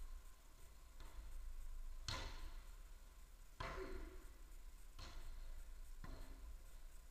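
A football being struck by players' feet, chests and heads in a footvolley rally: four thuds about a second or so apart, each echoing in a large hall.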